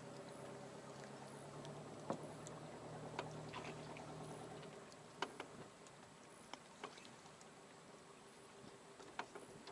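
A handful of small, sharp clicks and knocks, scattered a second or more apart, over a faint low hum that fades out about halfway through.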